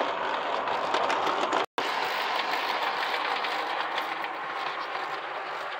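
Brass O scale model of a Japanese National Railways C62 steam locomotive running on layout track: a steady whirr of motor and wheels with light rapid clicking, broken by a momentary dropout about two seconds in.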